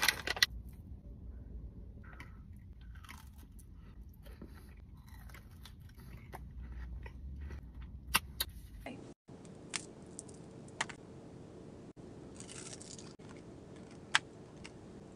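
Biting, crunching and chewing of a Dubai chocolate bar, milk chocolate filled with pistachio cream and crisp shredded kataifi pastry: a loud crack right at the start, then scattered sharp crunches and mouth sounds.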